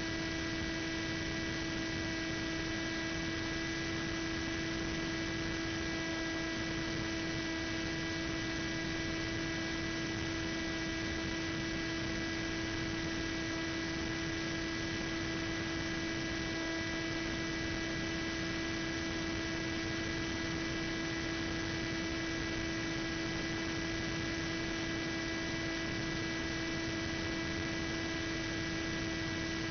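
Steady, unchanging hum with a constant hiss behind it: one held tone with evenly spaced overtones, carried on the FPV plane's analog video-link audio while it flies at a constant throttle.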